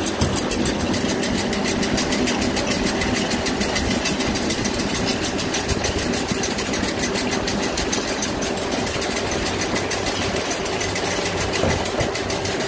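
Rope-making machinery in a plastic rope factory running steadily, with a fast, even mechanical beat.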